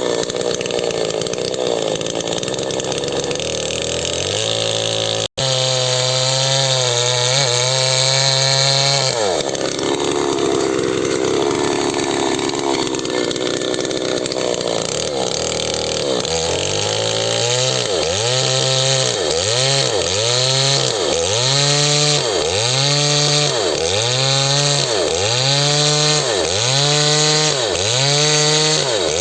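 Small chainsaw cutting lengthwise through wood, its engine under load. From about halfway its pitch rises and drops about once a second as the chain bites in and frees again.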